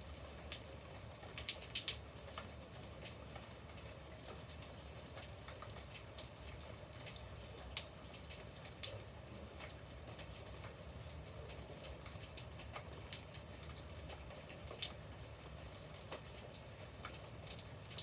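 Rain falling on wet brick paving and garden foliage: a soft steady hiss with individual drops landing as irregular sharp taps.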